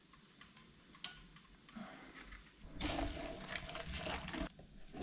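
Pasta in bolognese sauce simmering in a small saucepan on an electric hot plate as it is stirred, a hiss that lasts about two seconds in the second half. A faint click comes about a second in.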